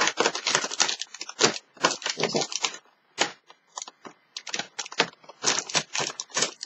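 Cardboard advent calendar door being picked at and torn open along its tear strip by fingers: a run of short crackling rips and scratches, dense for the first three seconds, then in scattered bursts.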